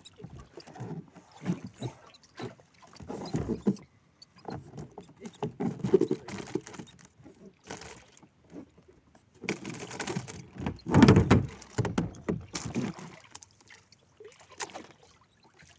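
Irregular knocks, rubs and water noise on a small wooden fishing boat while a tuna that has just struck is worked on the line. There is a louder, heavier run of knocking about ten seconds in, then it goes quieter near the end.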